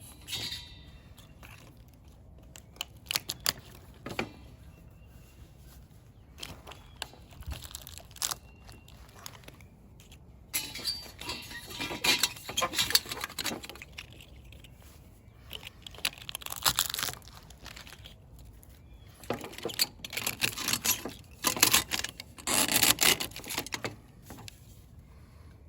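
Dry tinder being crumpled and broken up by hand, in irregular bouts of crackling rustle with a few sharp snaps.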